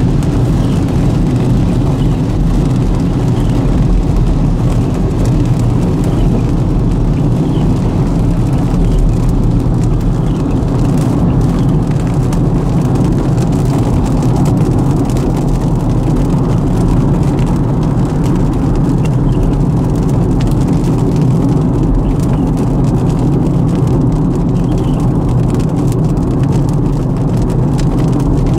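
Car driving on the road: a steady low rumble of engine and tyre noise.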